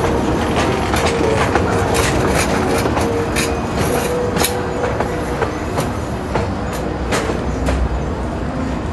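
Disneyland Railroad narrow-gauge passenger cars rolling past, their wheels clicking irregularly over the rail joints, with a faint steady whine under the rumble.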